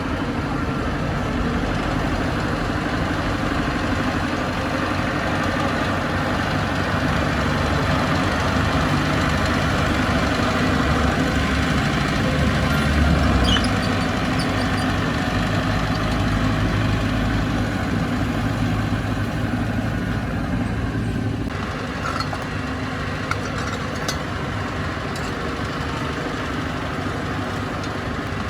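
Bulldozer's diesel engine running steadily, at its loudest about halfway through, then dropping to a lower, quieter note about three-quarters of the way in, with a few light clicks after.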